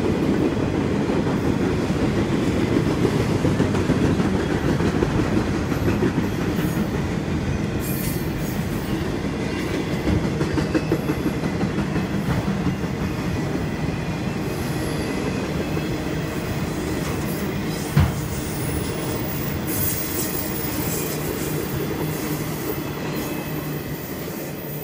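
Freight train of autorack cars rolling past at close range: a steady rumble of wheels on rail with clacking over the rail joints. A single sharp knock comes about three-quarters of the way through, and the sound eases slightly near the end as the last cars go by.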